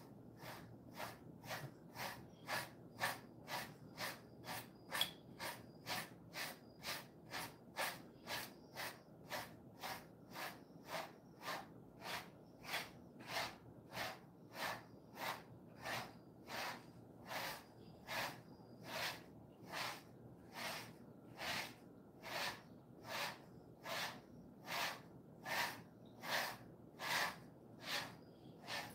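Hands rubbing a Jindo-mix dog's fur in a steady massage, a soft hiss with each stroke at about two strokes a second, a little stronger in the second half.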